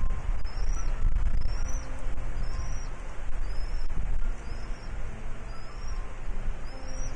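A bird repeating a short, high, rising chirp about once a second, over a steady low rumble.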